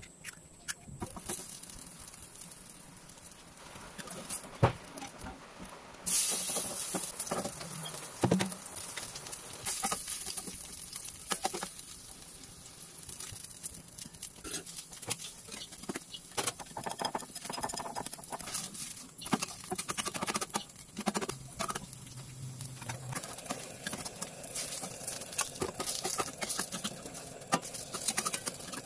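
Oil sizzling in a stainless steel frying pan as carrot, cabbage and egg fritters fry. The hiss grows much louder about six seconds in, with many clicks and knocks of a metal spatula against the pan.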